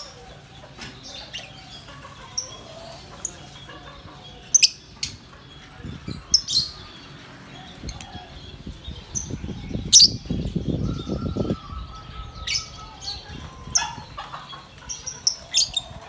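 Caged lovebirds giving short, sharp, high-pitched chirps, scattered singly and in quick pairs. A low rustling burst about ten seconds in, lasting some two seconds, is most likely wings fluttering.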